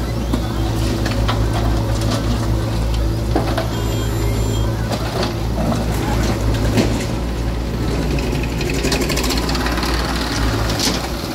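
Steady low drone of diesel engines from a JCB 3DX backhoe loader and a tractor running, with scattered knocks and rattles as earth and stones drop from the backhoe bucket into a steel tractor trolley.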